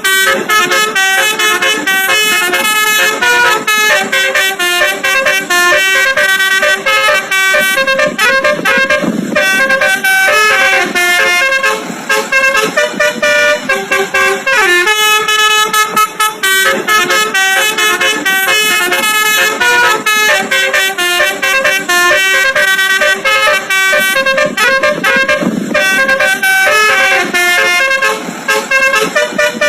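Basuri "telolet" musical bus horn playing a tune of short, stepped notes that repeats throughout.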